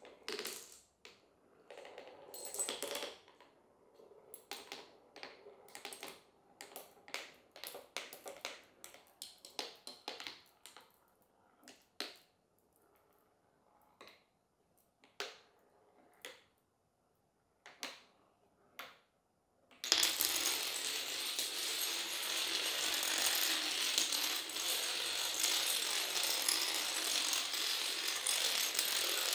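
Small marbles drop and roll down a board of wooden slats, making irregular clicks and short clatters. About two-thirds through, a long chain of dominoes starts toppling in a fast, continuous clatter.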